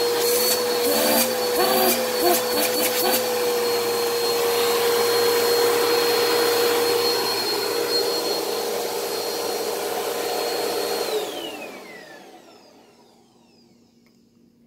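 Bissell PowerForce Helix Turbo upright vacuum cleaner running with a steady motor whine, with a few clicks and knocks in the first few seconds. About eleven seconds in it is switched off and the motor winds down with a falling whine, fading almost to silence.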